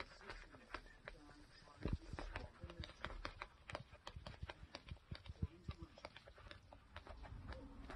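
Faint, irregular light clicks and taps, several a second: black flat shoes slapping against bare heels as they dangle and pop on and off the feet.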